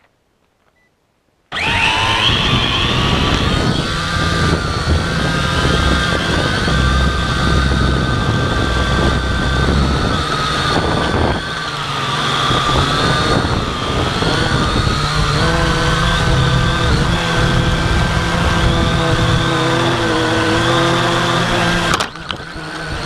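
Quadcopter drone's electric motors and propellers whirring loudly as heard from its onboard camera: they spin up about a second and a half in, and the whine wavers in pitch with the throttle. The whine cuts off abruptly near the end, when the drone crashes.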